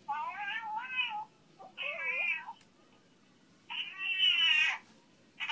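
Domestic tortoiseshell cat meowing repeatedly: about four drawn-out meows, each under a second, with short pauses between them.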